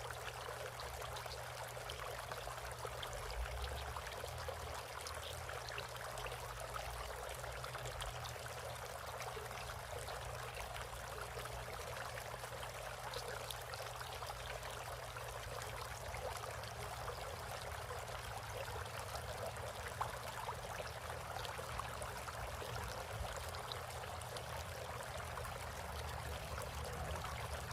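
Water trickling and splashing steadily in a bird bath.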